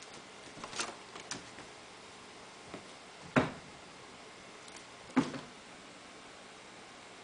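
A kitten pouncing and landing on a rug and wooden floor while it plays: a few light knocks about a second in, then two sharp thumps, the loudest about three and a half seconds in and another near five seconds.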